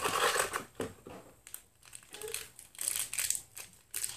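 Foil blind-bag wrapper crinkling in a child's hands as it is torn open, in short irregular rustles.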